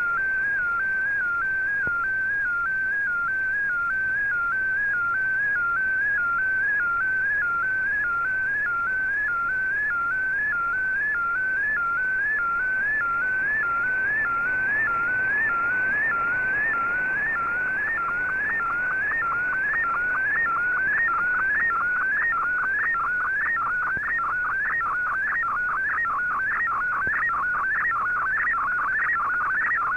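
Fldigi MFSK picture transmission received on a shortwave receiver: a single whistling tone that sweeps up in a repeating pattern just over once a second, over radio hiss. The tone's pitch carries the brightness of the image being sent, and the sweeps grow wider in the second half as the picture's content changes.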